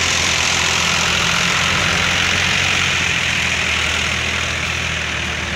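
Diesel engine of a Powertrac 439 tractor running steadily, with a strong steady hiss above the engine note, easing off slightly near the end.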